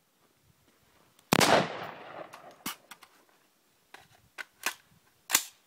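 A single loud AR-15 rifle shot about a second in, its report dying away over about a second, followed by several faint sharp cracks.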